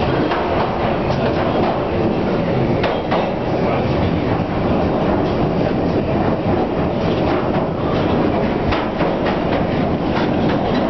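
London Underground 1967 Tube Stock train running at speed, heard from inside the carriage: a steady rumble of wheels and running gear, with scattered sharp clicks of the wheels on the rails, more of them in the second half.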